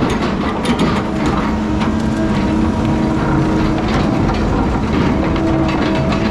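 A heavy diesel logging machine's engine running steadily under load, with frequent metallic clanks and rattles from the machine.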